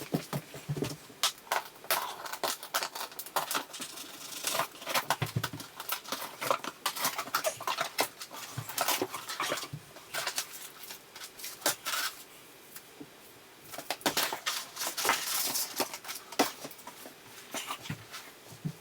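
Packaging being handled during an unboxing: irregular rustling and scraping with many small clicks and knocks, quieter for a couple of seconds past the middle.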